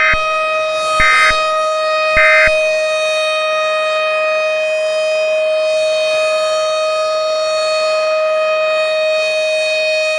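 Civil defense siren sounding one steady tone throughout. Over it near the start come three short EAS end-of-message data bursts, about a second apart, which mark the end of the alert.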